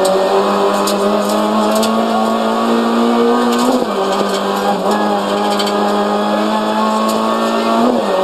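Renault Clio RS N3 rally car's four-cylinder engine at high revs under hard acceleration, heard from inside the cabin, its pitch climbing steadily and dropping sharply at gear changes about four seconds in and again near the end.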